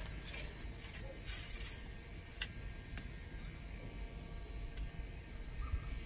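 Night insects with a steady high-pitched tone that stops near the end, a few sharp clicks, and a low rumble underneath.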